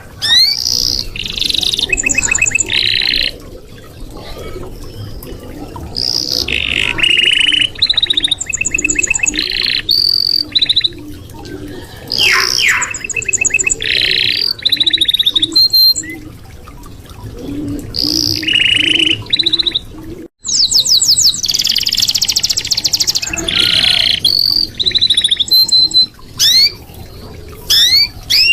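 Red canary singing a long, continuous song of rapid trills, each a fast run of one repeated note, switching to a new note and pitch every second or so. The song cuts out for an instant about twenty seconds in.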